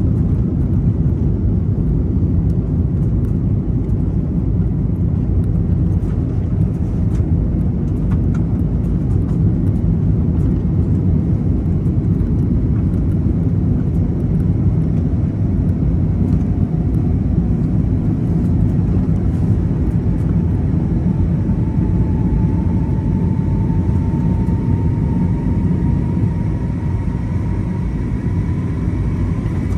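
Cabin noise of an Airbus A321neo with Pratt & Whitney PW1100G geared turbofans at takeoff thrust, heard from inside the cabin as the jet lifts off and climbs out: a steady low rumble of engines and airflow. The uploader takes it to be full TOGA thrust. About two-thirds of the way in, a faint whine appears and slowly rises in pitch.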